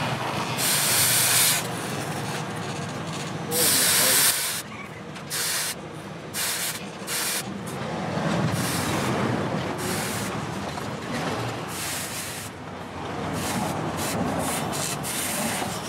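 Red-hot steel axe head dipped edge-first into quench water, again and again, to harden the edge: loud hissing sizzles in bursts, three long ones in the first four seconds, then shorter, quieter ones.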